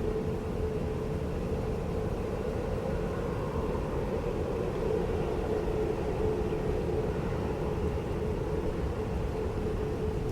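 Jet airliner engines running steadily: a low rumble with a steady mid-pitched hum held throughout.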